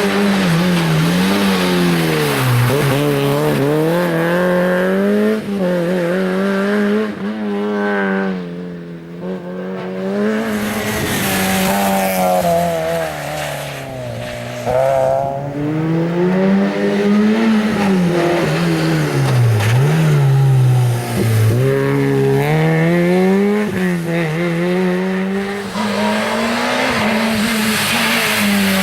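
Rally cars driven hard on a stage, engines revving up and dropping back again and again through gear changes and braking for corners, with tyre squeal.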